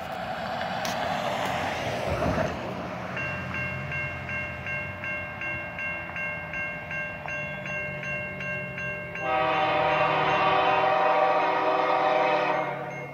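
An approaching train rumbles while a bell dings rapidly, about three times a second. A little past the middle the train's horn sounds one long blast of about three and a half seconds, the loudest thing heard.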